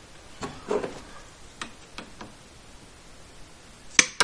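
Scattered light ticks and rustles as PEX tubing is handled, then, near the end, a sharp snap as a PEX pipe cutter closes through the tubing.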